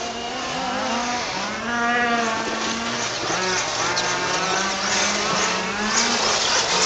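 Electric RC car's motor, running on a 4S battery, whining and rising and falling in pitch again and again as the car speeds up and slows.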